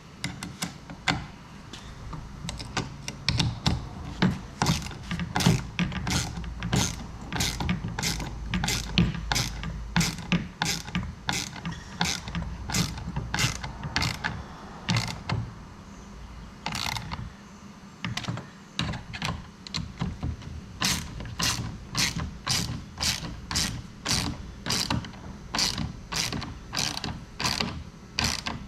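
Ratchet wrench tightening a nut down on the mount's bolt, clicking repeatedly at roughly two clicks a second, with a brief slowdown a little past the middle.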